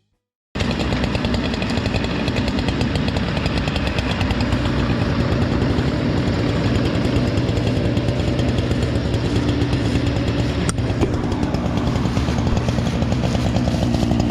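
Two-stroke gas chainsaw running steadily at high revs, starting abruptly about half a second in.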